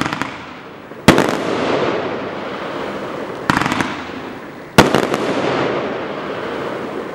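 Regal Compound firework cake firing: three sharp bangs about one, three and a half, and five seconds in, the middle one a rapid cluster of pops. Each is followed by a long crackling wash that slowly fades.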